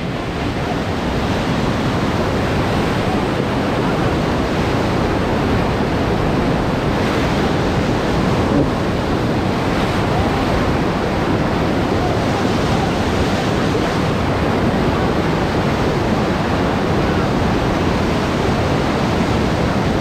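Whitewater rapids heard up close from inside a raft: a loud, steady rush of churning, foaming river water.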